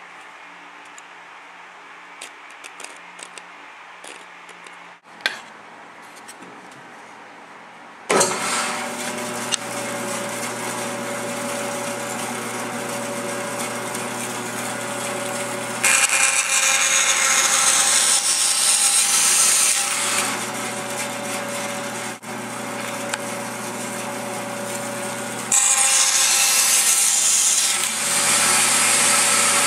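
Band saw switched on about eight seconds in, its motor and blade running with a steady hum. The blade cuts through wood twice, the sound turning louder and brighter for about four seconds from around sixteen seconds in and again near the end.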